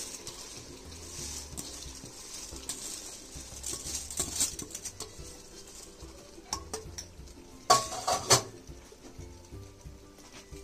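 Raw rice grains pouring and pattering into a pressure cooker, then a steel spatula stirring and scraping in the pot, with two sharp metal knocks against the cooker about eight seconds in.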